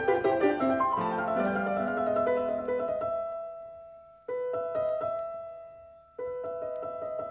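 Piano music: a run of struck notes that die away to near silence twice, about four and six seconds in, each time picking up again with new chords.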